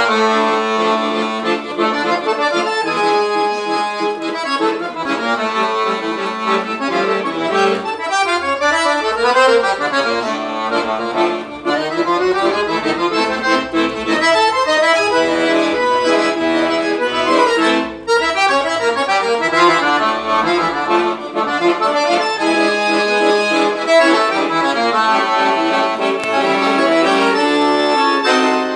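Scandalli piano accordion played solo: a melody over chords, with quick downward runs and low bass notes joining in about eight seconds in.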